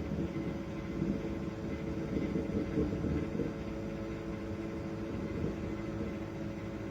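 BLACK+DECKER EM720CB7 microwave oven running: a steady hum and drone with a few held tones, unchanging throughout.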